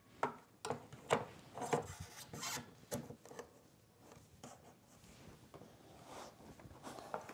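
A 3.5-inch Western Digital hard drive being slid by hand into the metal drive bay of a Synology DS220j NAS. Several sharp clicks and knocks come in the first three seconds, then softer rubbing and scraping.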